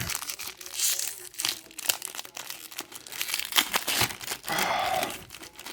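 Wax-paper wrapper of a 1983 Topps baseball card pack being torn open and crinkled: irregular crackling, with longer rustles about a second in and again near the end.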